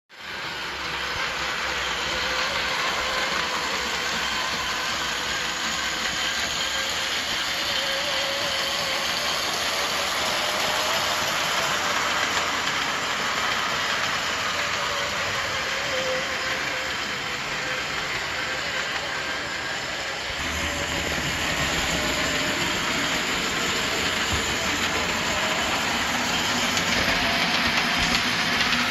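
A 1948-49 Great Western O scale model of a 4-4-0 American-type steam locomotive running steadily on the layout track: a continuous whir of its electric motor and gearing, with the wheels rolling on the rails. A lower rumble joins about twenty seconds in.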